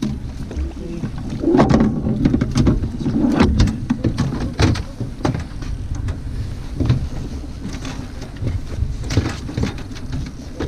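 Fishing boat under way: a steady low rumble of its motor with wind on the microphone, and scattered knocks and clatter on deck.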